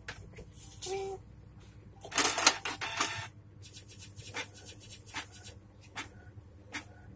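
Canon iP2770 inkjet printer mechanism working: a loud grinding whirr about two seconds in, then regular sharp clicks roughly every 0.8 seconds.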